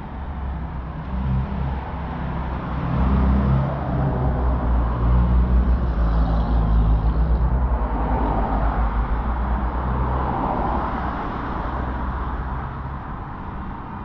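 City street traffic: a motor vehicle's engine running close by, growing louder about three seconds in and easing off near the end.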